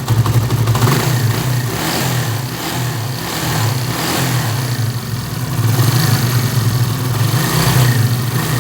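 Chinese 70cc four-stroke motorcycle engine running, its speed rising and falling a little. It has a freshly replaced timing chain, tensioner rod and roller rubbers, so the timing-chain rattle is gone and only a light noise remains.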